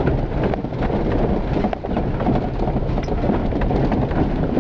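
Cab noise of a 4x4 driving over a rough, unsurfaced green lane: a loud, steady rumble of engine and tyres, with frequent small knocks and rattles from the jolting body.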